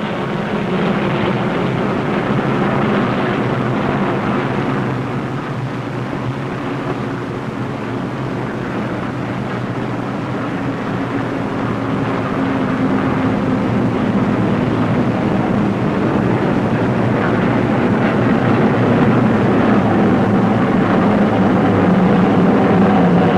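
Propeller-driven Harvard trainers' radial piston engines droning steadily in flight, with several held tones, growing louder in the second half.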